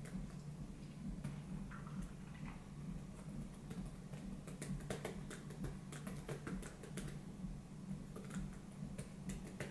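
Computer keyboard keys clicking in irregular runs as someone types, over a steady low hum.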